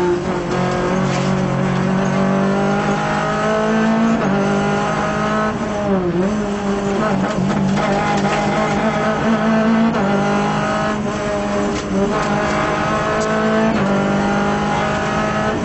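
Renault Clio Group A rally car's engine at hard acceleration, heard from inside the cabin: the revs climb through each gear and drop at every shift, with a deeper dip and pick-up about six seconds in as it slows for a bend and accelerates out.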